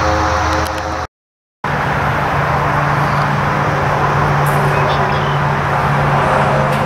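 Twin DLE 35 two-stroke gasoline engines of a giant-scale C-47 radio-control model droning steadily in flight overhead. The sound drops out for about half a second about a second in, then resumes at a steadier, higher pitch.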